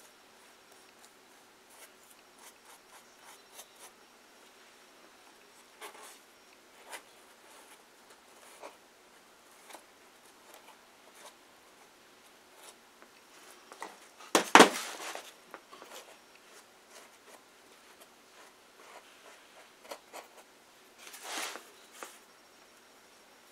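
Paintbrush and fingers working glue-soaked paper towel onto a cardboard wall: soft brushing, rubbing and light taps. A sharp knock comes about halfway through, and a longer, louder rustle near the end.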